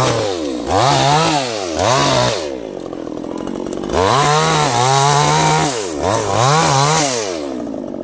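Two-stroke petrol chainsaw revving in short bursts, about five times, dropping back between them. It idles lower for a moment in the middle and again near the end, while it cuts felled sengon branches.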